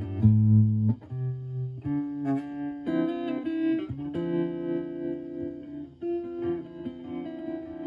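Clean electric guitar played through a Joyo JF-09 analog optical tremolo pedal into a Marshall Valvestate amp: a Stratocaster picking single notes and chords, the tremolo making the volume pulse.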